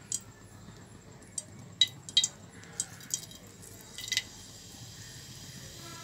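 Kitchen utensils clinking: several short, irregular clinks, the sharpest about two seconds in and a quick cluster just after four seconds.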